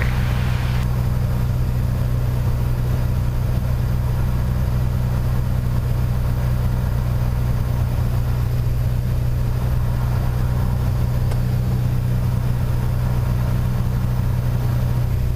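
Piper PA-28 Warrior III's four-cylinder Lycoming engine and propeller droning steadily, heard inside the cockpit, at approach power on final approach.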